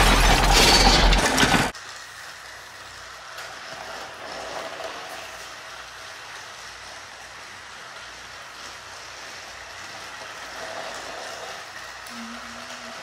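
A loud noise cuts off suddenly under two seconds in. Then motorized toy trains run on plastic track: a steady whirring with faint clicks and rattles.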